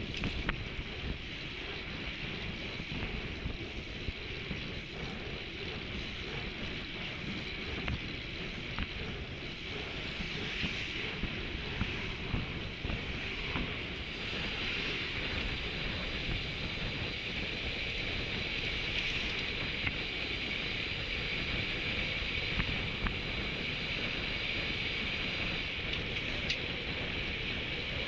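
Wind rushing over the microphone of a camera on a road bike riding at about 30 km/h, with the bike's own rolling noise; it grows a little louder about halfway through as the speed rises.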